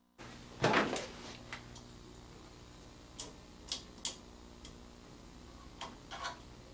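Hands handling the metal pole and collar of a Marco stand: a brief scraping rub under a second in, then a few light, scattered clicks as the lighting's set screw is worked out by hand.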